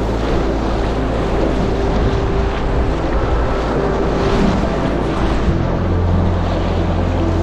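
Rushing whitewater of a river rapid around an inflatable packraft, with the splash of double-bladed paddle strokes about once a second and water spraying onto the camera.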